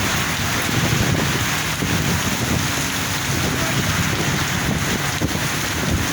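Heavy rain falling steadily, with wind rumbling on the microphone.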